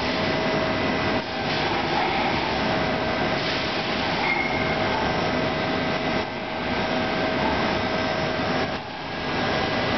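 CNC lathe turning a nut blank under flood coolant: a steady hiss of spraying coolant and cutting over a constant whine, dipping briefly a few times as the cut pauses.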